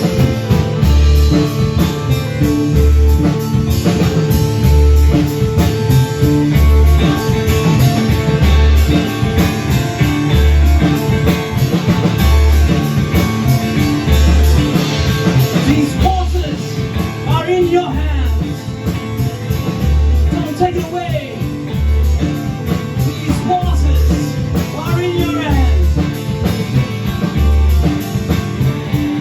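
Live rock band playing, with electric guitar, bass and drums over a repeating low bass note; from about halfway a wavering, bending lead line comes in over the top.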